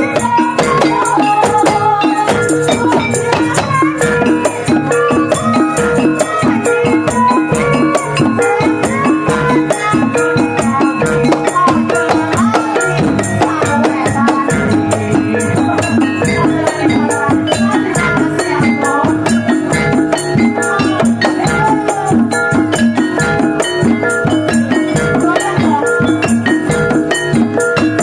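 Music with busy percussion and a melody, playing steadily at a constant loudness.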